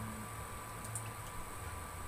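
Induction cooktop running at high power under a lidded pot of soup being brought to the boil: a steady hum and hiss with a faint high whine, and a few light ticks about a second in.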